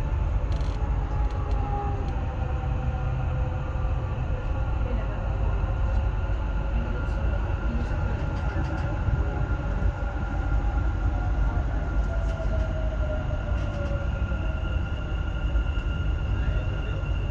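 Dubai Metro electric train running between stations, heard from inside the carriage: a steady low rumble with faint whining tones, some sliding slowly down in pitch, and a higher steady whine that comes in about fourteen seconds in.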